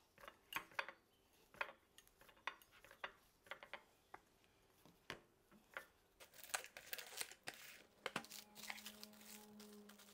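Kitchen utensils and dishes clinking in a string of irregular light taps, with a denser rustle about six seconds in and a low steady hum starting near the end.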